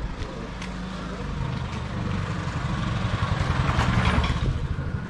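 A motor vehicle's engine running, growing louder to a peak about four seconds in and then easing off.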